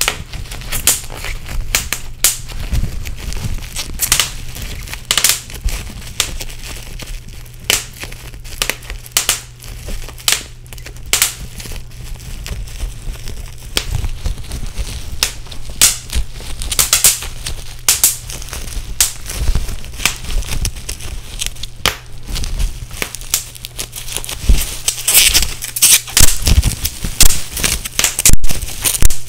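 Bubble wrap being crushed and popped: irregular sharp pops and crackles that come thicker and louder near the end, over a steady low hum.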